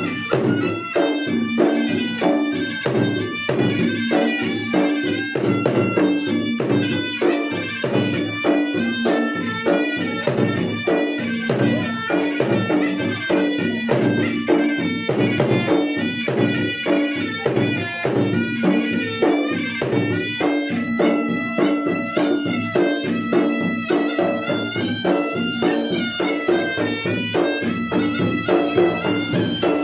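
Traditional Makassar gendang drums beaten in fast, dense strokes, with a reedy wind instrument playing a stepped, wavering melody over them.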